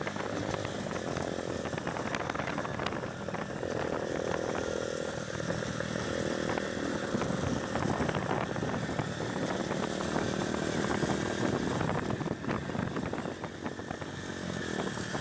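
Motorcycle engine running while riding, its revs rising and falling.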